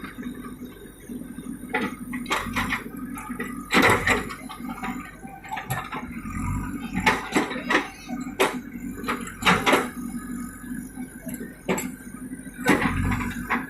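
JCB 3DX backhoe loader's diesel engine running steadily, with irregular sharp knocks and clattering from the machine at work, the loudest about four seconds in and near the end.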